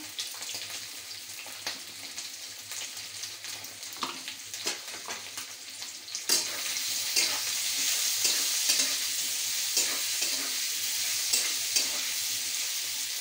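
Boiled potatoes sizzling in hot oil in a metal kadhai, with a spatula stirring and scraping against the pan. The sizzle gets louder about six seconds in, with sharp clicks and scrapes scattered through it.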